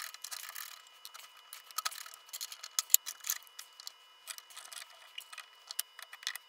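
Light irregular clicks and rustling of hands clipping oscilloscope probe hooks onto a brushless motor's wire leads, with one sharper click about three seconds in.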